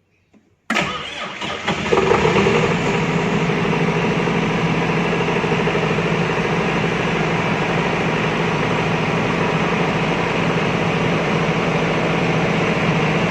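Diesel generator set starting: about a second in the starter cranks the engine briefly, it catches within about a second, then the diesel settles into a steady, even run.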